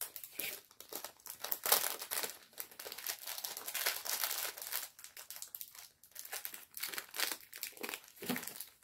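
Plastic pouch of a diamond painting kit crinkling in a dense run of irregular crackles as it is handled and tugged at.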